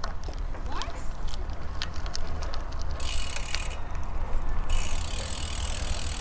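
Wind rumbling on the microphone of a moving road bicycle, with scattered clicks from the rear hub's ratchet as the bike coasts.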